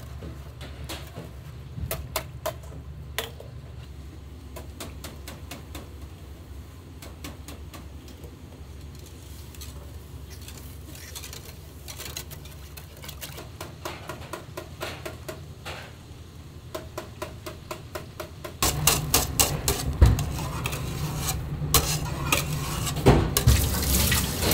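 Kitchen prep clatter: utensils, dishes and pans knocking now and then over a steady low hum of kitchen equipment. About three-quarters of the way through it gets louder as a steady rush of running tap water joins the clatter.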